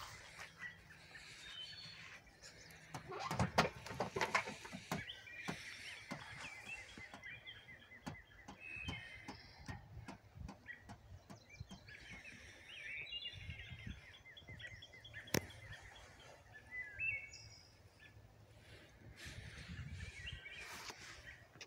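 Small birds chirping and singing over a faint steady background hiss. A cluster of knocks and rattles comes about three to five seconds in, and one sharp click comes later.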